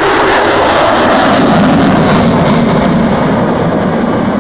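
F-22 Raptor's twin Pratt & Whitney F119 turbofans making loud, steady jet noise during a display pass, the noise sinking lower in pitch as the jet pulls away.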